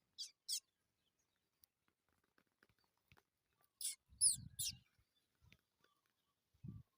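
Small songbird chirping: two quick high calls sliding down in pitch at the start, then a cluster of four or five more about four seconds in, with low rustling and knocks around them.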